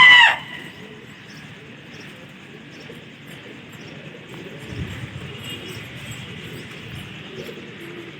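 A brief, loud, high call rising and falling in pitch right at the start, then pigeons cooing softly over a steady background hiss.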